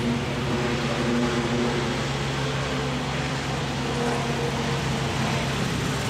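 A car engine idling steadily at an even speed.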